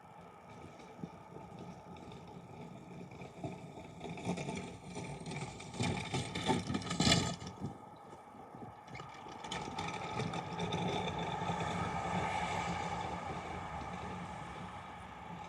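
A snow plow vehicle's motor running with a steady whine while it pushes snow. Rough scraping rises about four seconds in, is loudest about seven seconds in, and the running swells again about ten to thirteen seconds in.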